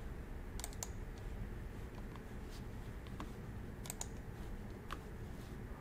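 Scattered clicks and taps on a laptop keyboard and mouse, irregular and some in quick pairs, over a steady low background hum.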